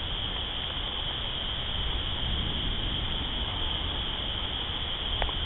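Steady hiss of light rain just beginning to fall, over a constant high insect chorus, crickets by their sound.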